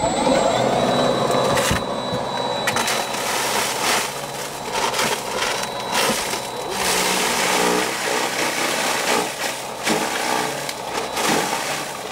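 Greenworks Pro 80V cordless electric snow shovel starting up with a rising whine, then running as its 12-inch auger churns through wet snow on concrete, the sound swelling and dipping as it bites into the snow.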